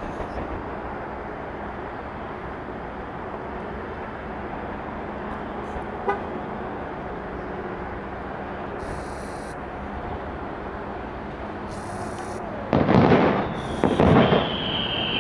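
Fireworks going off at a distance over a steady rumbling background, with a single sharp pop about six seconds in. Near the end come two loud crackling bursts, one right after the other, followed by a steady high tone.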